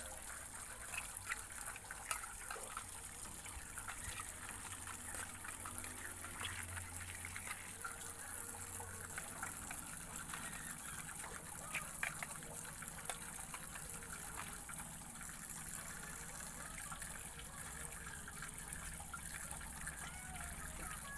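Steady gush of running water.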